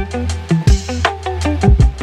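Background music with a steady beat: drum hits, a bass line and melodic notes.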